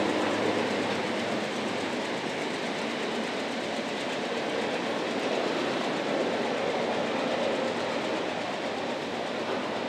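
Freight train cars rolling past, a steady noise of steel wheels on rail with a light rattle.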